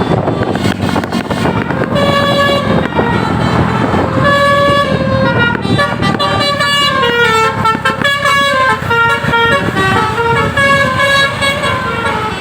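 An Indonesian bus's 'telolet basuri' multi-tone musical horn playing a tune of stepped notes. The tune starts about two seconds in, over steady engine and road noise.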